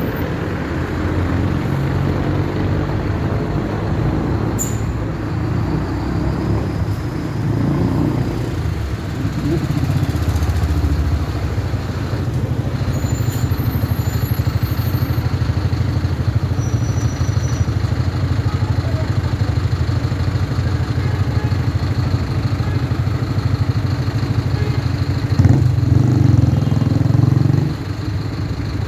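Mercedes-Benz OF 1519 bus diesel engines running with a steady low rumble, swelling briefly near the end before dropping back.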